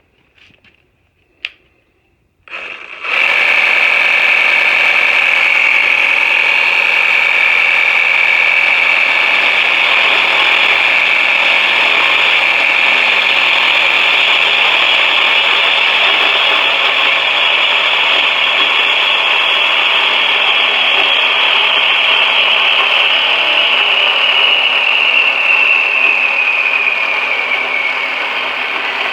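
A motor starts about three seconds in and runs steadily with a high whine, dipping slightly in pitch near the end.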